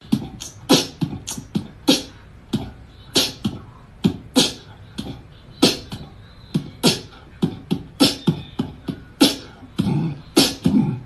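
A run of sharp percussive clicks and low thumps in an uneven rhythm, about three a second.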